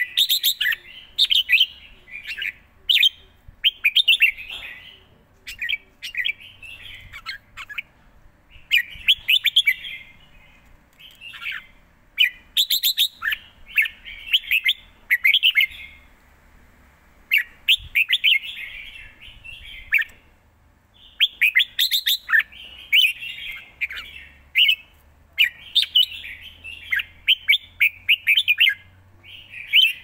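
Caged red-whiskered bulbul singing: bursts of quick, bright whistled phrases, one after another with brief pauses between them.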